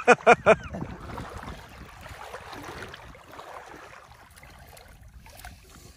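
A few short, loud syllables of a man's voice right at the start, then water sloshing and swirling around legs wading through a shallow river while a fishing net is hauled in by hand.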